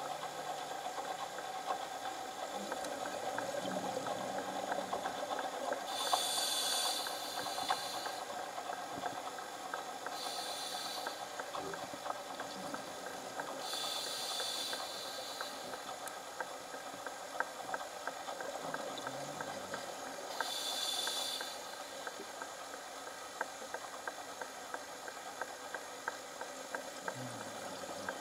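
A scuba diver breathing through a regulator underwater: four rushes of exhaled bubbles a few seconds apart, over a steady hiss with faint scattered clicks.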